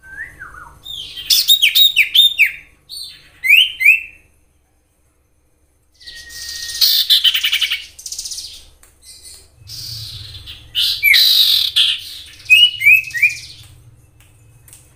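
Common iora singing: short downward-slurred whistled notes mixed with rapid buzzy chatter. It comes in two bouts, broken by a silent pause of about a second and a half just after four seconds in.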